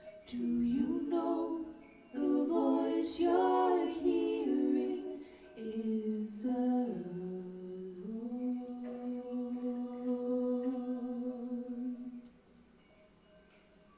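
High school choir singing a cappella, ending the song on one long held note that dies away about twelve seconds in.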